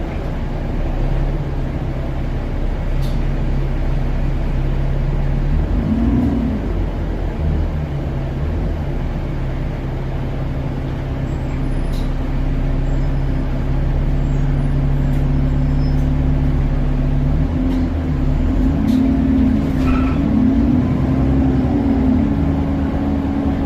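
Alexander Dennis Enviro400 double-decker bus running, its diesel engine and drivetrain giving a steady hum with a second, wavering tone that comes and goes, about six seconds in and again near the end; the engine gets a little louder about halfway through. The wavering tone may be the odd noise this bus makes under acceleration.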